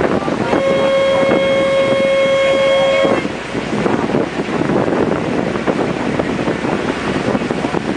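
A boat horn sounds one steady blast of about two and a half seconds, starting about half a second in. After it, wind buffeting the microphone and the rush of water and engine noise of the moving boat.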